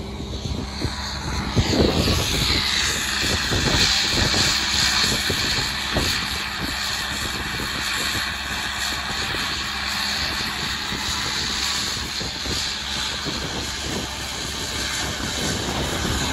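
Crawler chain trencher running: its engine under load and its digging chain cutting a trench through the soil, getting louder about two seconds in. Wind buffets the microphone.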